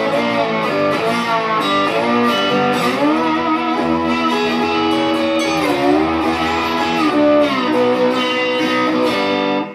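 Squier Stratocaster-style electric guitar played with a slide in a blues instrumental break, sustained notes gliding up and down in pitch between strummed chords.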